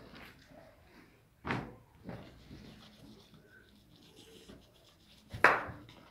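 Handling noise: cloth rubbing and knocking against the phone's microphone, with two sudden loud scuffs, one about a second and a half in and a louder one near the end.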